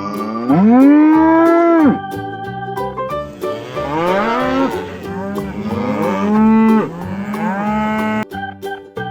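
Cows mooing: one long, loud moo, then several more overlapping moos, over a light keyboard tune.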